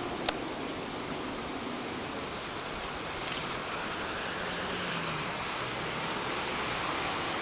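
Heavy rain falling on wet pavement, a steady hiss, with one sharp click just after the start.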